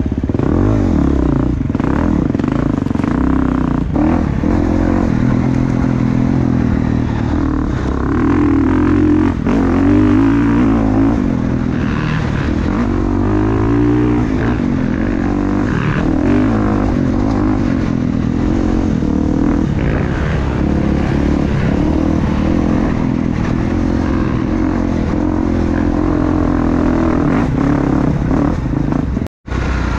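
Gas Gas 350 four-stroke dirt bike engine running on the trail, revs rising and falling as it is ridden, with some clatter. The sound cuts out for an instant near the end.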